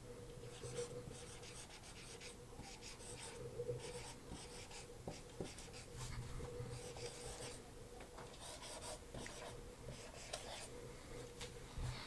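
Marker pen squeaking and scratching across a whiteboard in short, quick strokes as letters are written.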